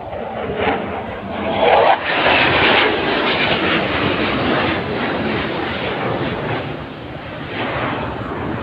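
Aircraft flying past overhead in formation: a steady rush of engine noise that swells to its loudest about two seconds in and then slowly fades.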